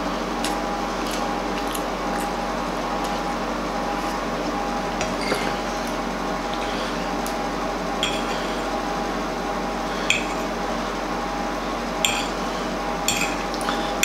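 Metal fork clinking and scraping against a ceramic plate while cutting a pancake: about half a dozen sharp clinks from the middle on, over a steady background hum.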